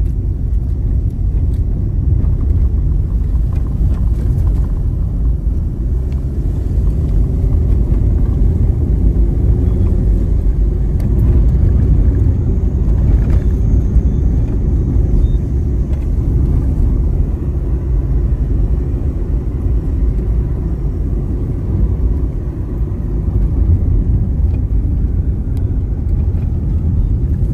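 Steady low rumble of a car driving along a narrow, patched road, with engine and tyre noise heard from inside the cabin.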